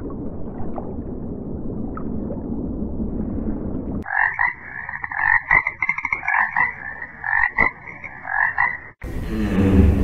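A low steady rumbling noise, then from about four seconds in a tree frog calling: a rapid run of repeated croaks that stops abruptly about a second before the end, where a different low rumble takes over.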